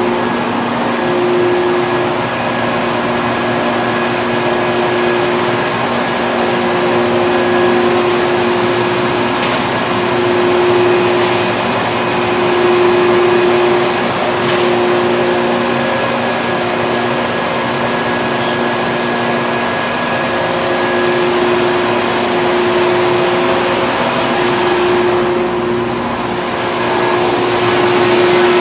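Log-milling machinery running steadily: a loud mechanical hum with two steady held tones, and a few sharp clicks in the first half.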